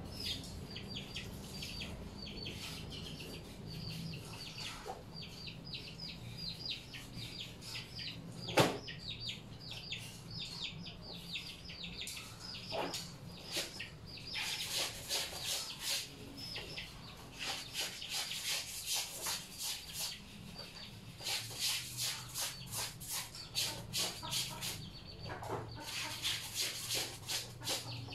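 Birds chirping continuously with quick, repeated calls. From about halfway in, rhythmic swishing strokes of clothes being scrubbed by hand in a basin come in spells of a few seconds. A single sharp knock about a third of the way in is the loudest sound.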